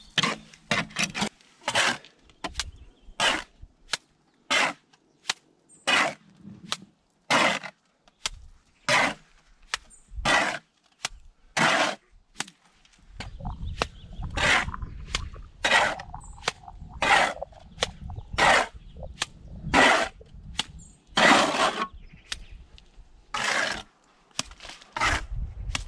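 A steel trowel scraping runny cement slurry off a hand board and throwing it onto concrete blocks, a short stroke about every second and a half, as a first spatter coat (gobetis) is laid on before the render. A low rumble joins about halfway through.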